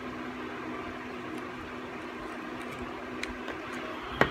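Steady hum and hiss of room noise, with a few faint clicks and one sharp click near the end as a flat iron is handled.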